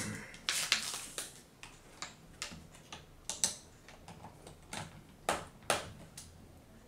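Irregular small clicks and taps of a screwdriver on a tiny screw and the plastic laptop screen parts as the screw is driven into the Lenovo Z570's screen mount.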